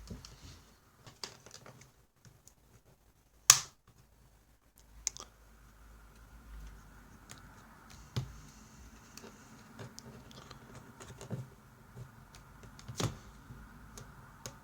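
Plastic screen bezel of a laptop being pried off with fingernails: scattered sharp clicks and snaps as its clips pop loose, over faint handling noise, the loudest snap about three and a half seconds in and another near the end.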